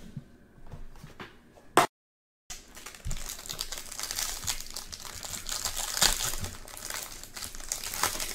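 A trading-card pack's plastic wrapper crinkling and tearing as it is opened by hand. The crinkling starts about three seconds in, after a brief dropout to total silence.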